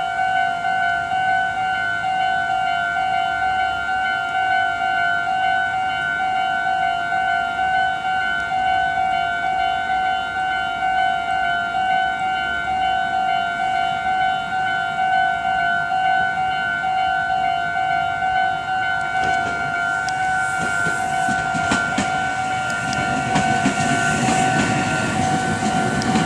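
Japanese railway level crossing's electronic warning bell ringing in a steady pulsing two-tone clang. From about 20 seconds in, a Meitetsu train approaches and passes with a rising rumble of wheels on rails under the bell.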